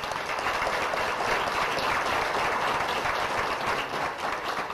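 Audience applauding: many people clapping together in a dense, steady patter that eases slightly near the end.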